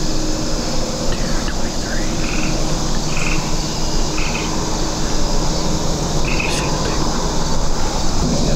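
A frog giving short, high calls, four of them spaced a second or two apart, over a steady outdoor hiss.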